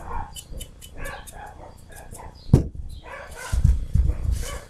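A stiff dry paintbrush scratching in quick strokes over a plaster figure, with dull knocks as the piece is handled, loudest about two and a half seconds in and again near the end. A dog barks in the background.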